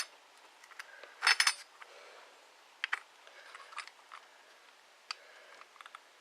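Small metal RC truck parts and tools clicking and clinking as they are handled and fitted back together, with a short cluster of clinks about a second and a half in and scattered single clicks after.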